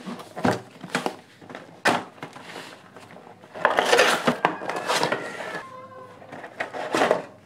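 Cardboard box and clear plastic packaging being handled as a speaker is slid out of it: scattered knocks and scrapes, with a louder stretch of rustling in the middle.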